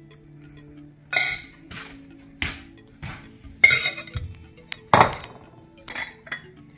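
Metal serving utensils clinking and scraping against bowls as pomelo salad is lifted out and served, a series of sharp, irregular clinks. Soft background music plays under them.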